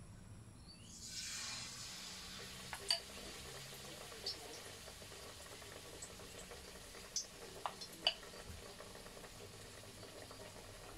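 A batter-coated breadfruit slice going into hot oil in a wok, setting off a swell of sizzling about a second in, then steady deep-frying sizzle with sharp pops now and then.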